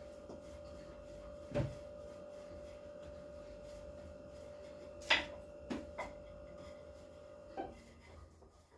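A few scattered knocks and clicks from dough and utensils being handled on a kitchen work surface: a dull knock early on, then a sharper click and a few lighter taps. A steady electrical hum runs underneath.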